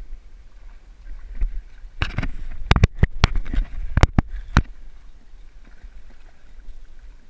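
A hooked fish thrashing at the surface right beside the boat hull, a quick run of splashes and sharp knocks between about two and four and a half seconds in, over water lapping against the hull.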